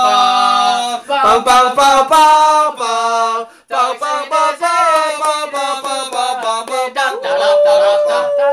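Male voices singing unaccompanied, in short melodic phrases with held notes, ending on one long sustained note.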